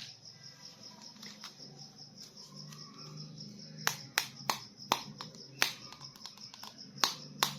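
Hands handling a plastic toy figure or its packaging: about a dozen sharp, irregular clicks and taps, starting about halfway in.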